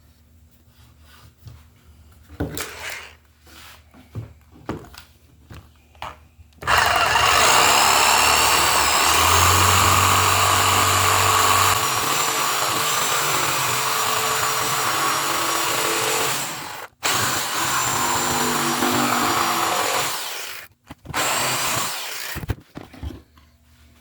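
A jigsaw cutting a handle opening in an elm board: it runs loudly and steadily for about fourteen seconds with one momentary break, then stops. A few knocks and clatters come before and after the cut.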